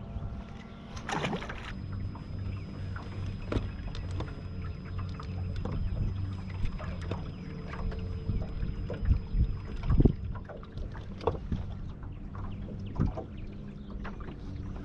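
Bass boat on open water: small waves slapping against the hull, with scattered knocks on the deck over a steady low hum. A brief rush about a second in.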